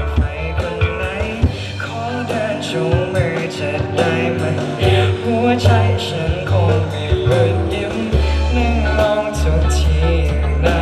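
Marching band playing a Thai pop song arrangement, with regular drum hits under sustained low bass notes and a wavering melody line that sounds sung.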